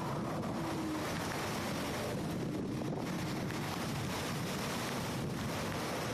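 Wind blowing across a phone's microphone: a steady rushing and rumbling noise.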